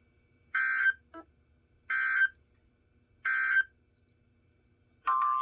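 Emergency Alert System end-of-message signal: three short, identical bursts of warbling SAME digital data tones, about a second and a third apart, marking the end of the tornado warning broadcast. Just before the end, a steady tone begins.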